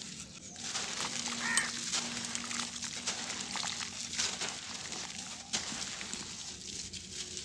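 Hands crumbling dry sand-cement clumps: grainy crunching and crackling as the lumps break, with the soft hiss of powder pouring through the fingers. A brief animal call sounds about a second and a half in.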